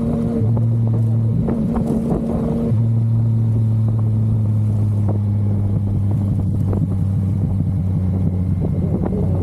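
Yamaha MT-09's three-cylinder engine running under way; its note steps up and down a few times in the first three seconds, then holds steady at a cruise.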